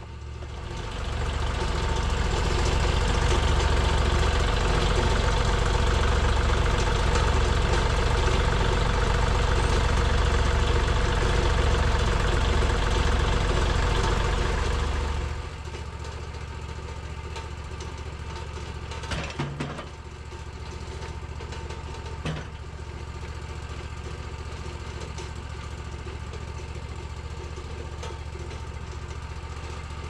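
Wood-Mizer portable sawmill's engine speeding up and running hard for about fifteen seconds, then dropping back to a steady idle. Two short knocks come during the idle.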